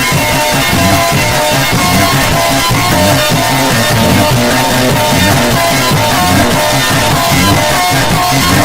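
Loud, continuous music with guitar and drums, dense and harsh, in a rock style.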